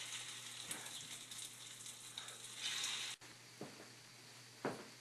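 Egg and potato tortilla mixture sizzling in hot olive oil in a frying pan. The sizzle cuts off abruptly about three seconds in, and a few short, faint knocks follow.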